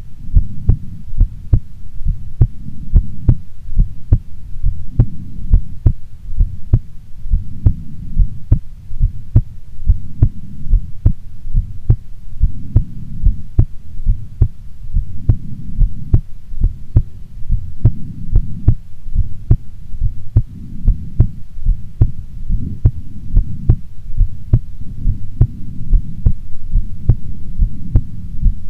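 A woman's heartbeat: a steady, regular run of low thumps that continues evenly, over a low rumble.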